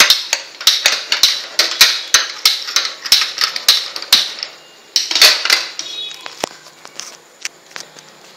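Seeds popping and crackling in hot oil in a pan, a tempering (tadka): a dense run of sharp pops for the first few seconds, another flurry about five seconds in, then thinning to scattered pops.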